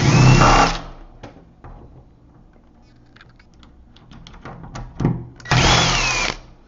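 Cordless drill-driver backing out the two screws that hold the old deadbolt on: two short whirring runs, one at the start and one about five and a half seconds in, with light clicks of handling between.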